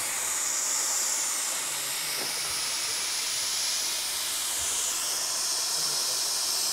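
LB&SCR 'Terrier' 0-6-0 tank locomotive standing with steam escaping from the safety valve on its dome: a steady, high hiss.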